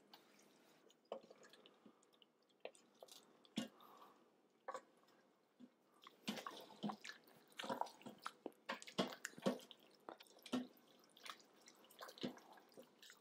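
Wooden spoon stirring cooked penne through thick tomato sauce in a stainless steel pressure-cooker pot: faint wet squelches and soft clicks, busier from about halfway through.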